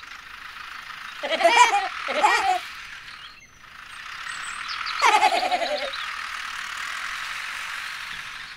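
Short, high-pitched, voice-like squeaks of a cartoon sound effect, twice about a second in and once more, falling in pitch, about five seconds in, over a steady hiss.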